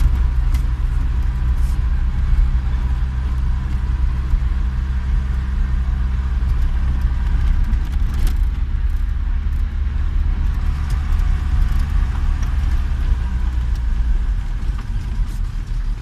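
Vehicle engine running steadily while driving on a dirt road, heard from inside the cab as a low rumble with tyre noise and occasional short clicks and rattles.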